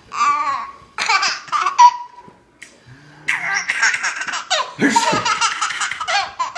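A baby laughing in high-pitched bouts: two short bursts of laughter, a pause of about a second, then a longer unbroken run of laughter.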